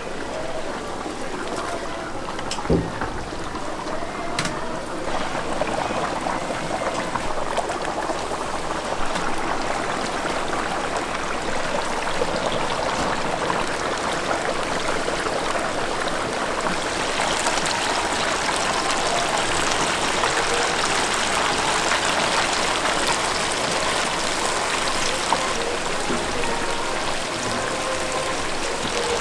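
Chicken deep-frying in hot oil: a dense, steady sizzle that grows a little louder and brighter about two-thirds of the way through. A single knock sounds about three seconds in.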